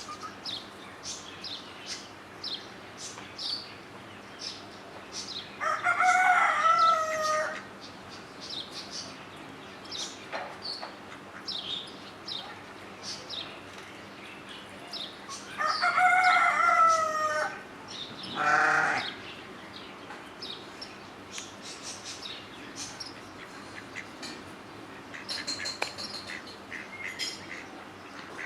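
A rooster crowing twice, each crow about two seconds long and about ten seconds apart, with a shorter call just after the second. Small birds chirp throughout.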